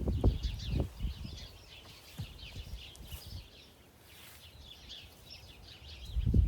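Small birds chirping steadily in the background, with low knocks and rustling near the start and again near the end.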